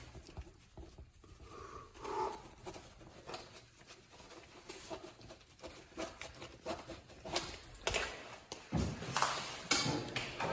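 Pen scratching on paper on a clipboard as a contract is signed, with scattered light knocks and rustles of handling that grow busier in the last few seconds.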